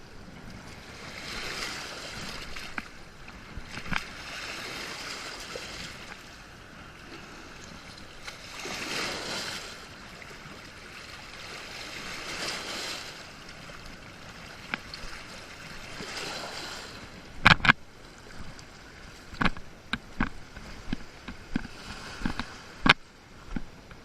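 Water washing in with waves that swell and fade every few seconds. In the last third come a series of sharp knocks and clicks, the loudest sounds here.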